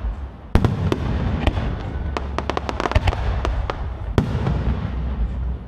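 Aerial fireworks shells bursting in the sky: a sharp bang about half a second in and another a little past four seconds, with crackling pops and a low rumble in between.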